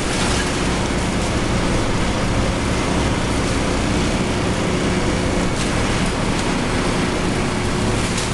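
Komatsu BR200T-1 tracked tub grinder running, its Komatsu SA6D125E2-A six-cylinder diesel engine holding a steady speed under a loud, even mechanical rush from the machine, with a few faint knocks.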